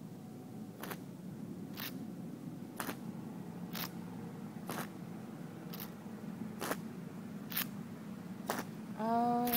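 Sharp, evenly spaced clicks about once a second over a low steady hum, like a slow metronome beat. Near the end a woman begins singing.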